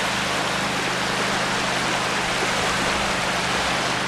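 Steady, even rush of lake waves washing onto the shore.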